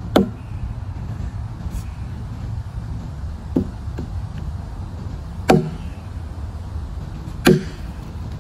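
An axe chopping into a fallen log: a heavy strike right at the start, two lighter knocks a few seconds later, then two more heavy strikes about two seconds apart near the end.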